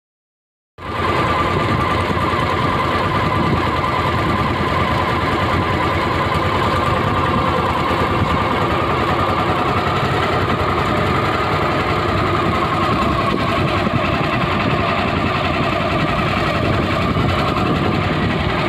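Boat engine running steadily, a constant engine noise with a steady whine on top. It cuts in abruptly about a second in.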